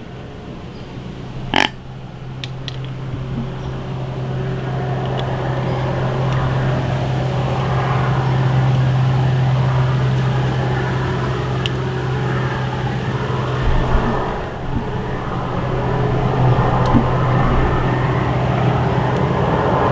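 A steady low engine hum under a rushing noise that grows louder a few seconds in, like a motor vehicle running.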